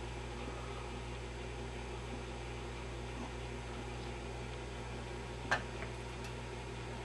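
Steady low electrical hum with an even hiss from the powered-up tube test bench, broken by one sharp click about five and a half seconds in.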